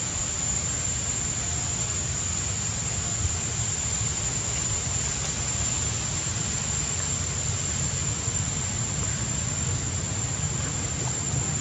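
Steady outdoor background noise: a low rumble under an even hiss, with a thin, steady high-pitched whine.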